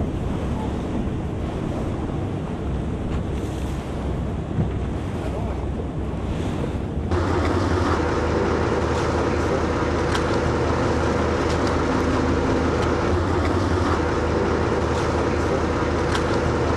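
Wind on the microphone and water on the lagoon. About seven seconds in, a cut brings in a boat's engine running steadily with a low hum, louder than the wind and water before it.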